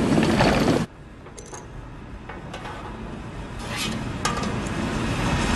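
Sound effects for an animated film's machine world: a loud, dense sound cuts off abruptly just under a second in. It leaves a low hum with scattered faint metallic clicks and ticks that slowly grows louder.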